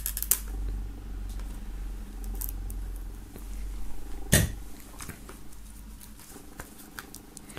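Small scratches and clicks of a knife tip picking at the plastic shrink-wrap on the edge of a CD case, with one louder knock about four seconds in, over a low steady rumble that fades near the end.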